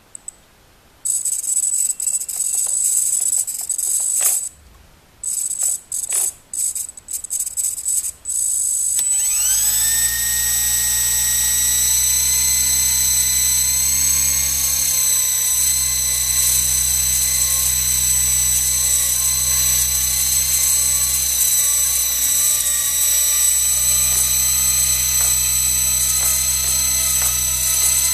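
Blade mSR-X micro RC helicopter on the bench: first a series of short, irregular bursts of high-pitched buzzing, then about nine seconds in the small electric main motor and plastic gear spool up with a rising whine that settles into a steady high-pitched whine with the main rotor spinning.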